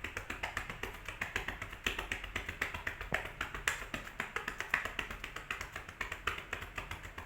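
Rapid, even clapping of cupped hands on a patient's back, about seven claps a second: chest percussion to loosen sputum that is hard to cough up.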